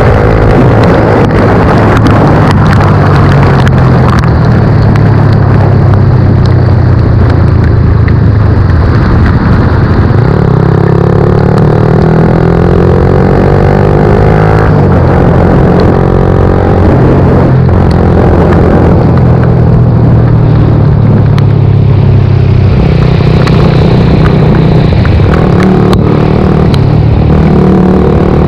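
Suzuki GSX-R125's single-cylinder engine running under way, its revs rising and falling repeatedly as the bike accelerates and changes gear, over loud steady noise.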